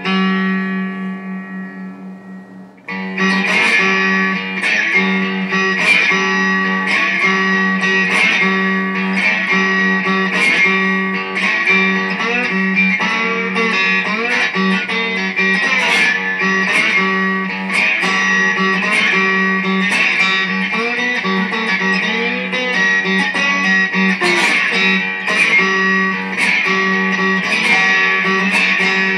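Three-string slide cigar box guitar played through a distorted, 'dirty' sound. One note rings and fades, then about three seconds in a continuous riff starts, with sliding pitches over a steady low drone string.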